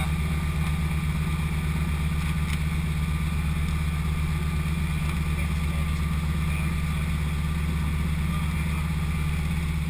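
Floatplane's piston engine and propeller running steadily, heard from inside the cockpit as the plane moves across the water.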